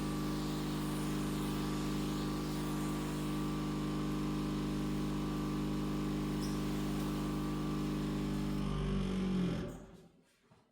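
A motor-driven machine running at a steady pitch with a constant hum, which shuts off about nine and a half seconds in and winds down quickly.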